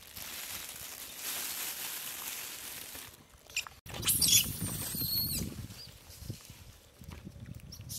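A steady hiss of noise for about three seconds, then long-tailed macaques scuffling, with a burst of high-pitched screeches a little after the middle and low knocks of bodies on the ground.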